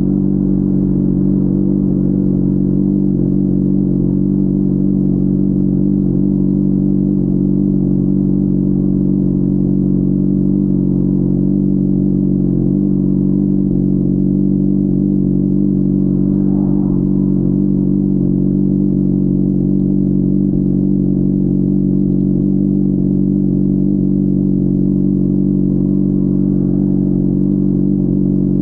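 Honda CBR600RR's inline-four engine running at a steady, unchanging speed, muffled through a backpack.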